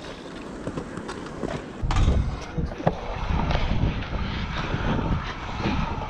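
Wind buffeting the microphone, a low rumble that sets in about two seconds in, with scattered light knocks and clicks over it.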